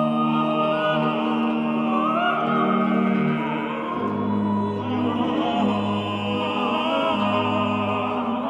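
Male voices singing a 17th-century Italian sacred concerto in parts over a chamber organ, holding sustained chords with vibrato. The bass moves to a lower note about four seconds in.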